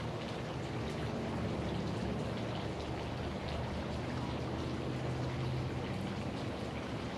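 Steady background hiss with a faint low hum underneath.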